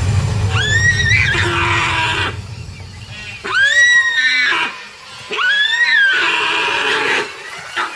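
A deer calling in distress while under attack: three loud, high calls, each about a second long, rising and then falling in pitch, near the start, about three and a half seconds in, and about five seconds in. A low rumble of background music sits under the first two seconds.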